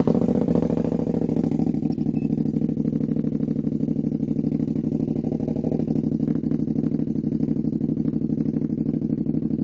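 Can-Am Maverick side-by-side engine idling steadily with an even pulse, just after being started on a freshly flashed ECU tune; it runs without fault codes.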